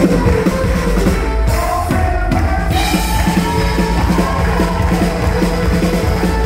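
Live country-rock band playing: a drum kit keeps a steady beat under acoustic guitar and mandolin, with a held melody line over the top that bends slowly up and down in pitch.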